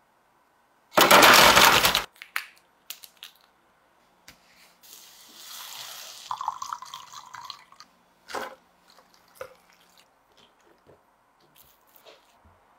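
A loud burst of rushing, splashing noise lasts about a second. From about five seconds in, hot oil poured over minced garlic, chili powder and white sesame sizzles for a couple of seconds. Scattered light clicks and knocks of glass and containers follow.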